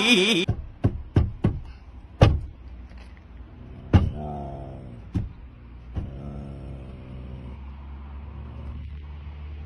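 Several sharp knocks on a car window, then a short falling whine about four seconds in, over the car's steady low hum.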